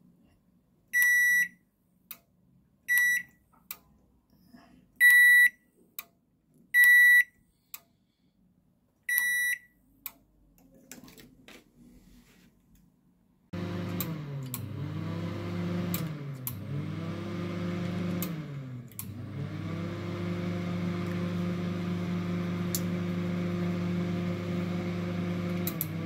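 A microwave oven's control board beeps five times, about two seconds apart. Later a steady motor hum starts suddenly: the oven's cooling fan and turntable motor running, with a few brief dips in pitch and light clicks over it.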